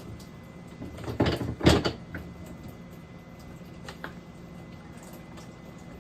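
Two loud knocks about half a second apart, then a lighter click near four seconds: a refrigerator's drawers, shelves and containers being handled as it is emptied for cleaning.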